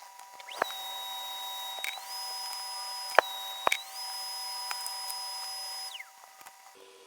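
Small high-speed electric rotary tool whining, stepping between two speeds and spinning down near the end, with a few sharp clicks.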